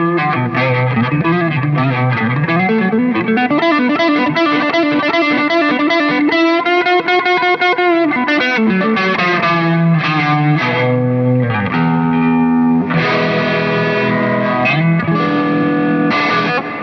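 Samick LS 11 Stratocaster-style electric guitar played through distortion: a lead line with pitch bends in the first few seconds, a fast run in the middle, then held notes and chords.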